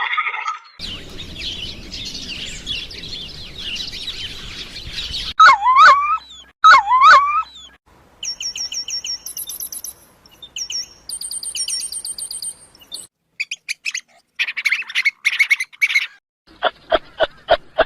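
A run of separate bird-call recordings. First a dense chorus of high chirps, then two loud calls that slide up and down in pitch. After that come high, rapid trills and short bursts of chirps, ending in a fast series of evenly spaced notes.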